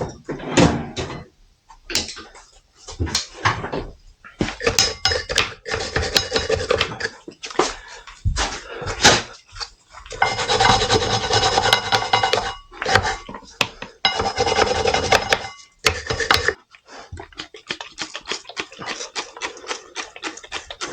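Hand tools and metal brake parts clinking and knocking as they are handled, with several stretches of rubbing and scrubbing a few seconds long, as the brake caliper is worked on and cleaned.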